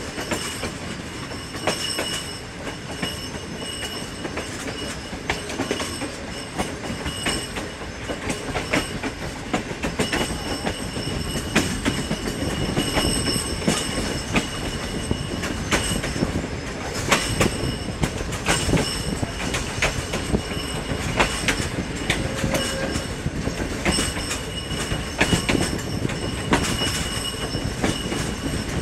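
Karakoram Express passenger coach rolling over the track, its wheels clattering irregularly over rail joints and points, with a high wheel squeal that comes and goes. Heard from an open coach window, with a constant rumble of the running train underneath.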